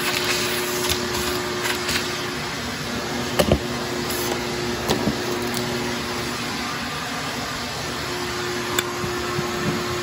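Ten-gallon Shop-Vac wet/dry vacuum running steadily, a hum with a steady low tone over the rush of air, with a few brief clicks.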